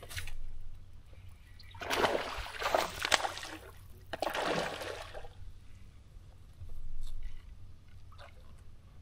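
Water sloshing and splashing in two bursts, the first about two seconds in and lasting a second and a half, the second shorter, about a second later.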